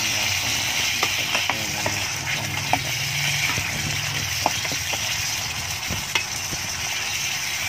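Pork pieces sizzling in hot fat in a pot, with a steady hiss and scattered pops. A metal ladle stirs and scrapes against the pot.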